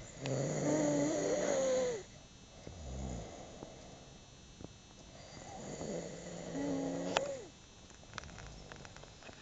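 Snoring: two long snores about five seconds apart, each about two seconds of a pitched tone that falls away at its end, the first followed by a quieter, lower breath.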